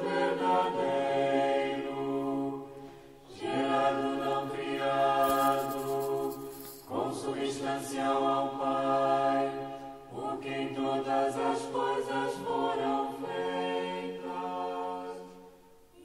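A choir singing a slow chant in long held phrases of about three seconds each, with short breaks between them. It dies away near the end.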